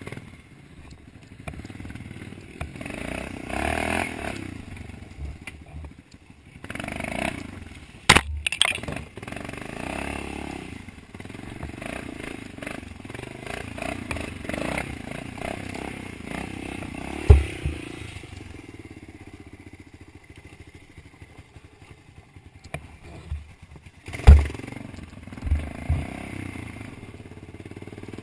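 Dirt bike engine revving up and down while being ridden. Three loud, sharp knocks, spread through the ride, stand out above it, along with a few smaller ones.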